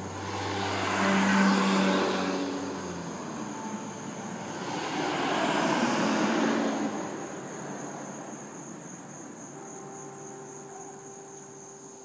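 Two vehicles pass on the road, each swelling and fading as it goes by: one about a second in and a black Jeep around the middle. A steady high cricket chirr runs underneath.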